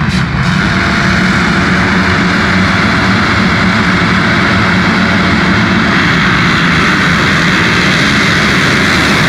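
A full start line of motocross bikes revs together at the start gate, a loud dense mass of small engines, then pulls away in a pack as the race starts.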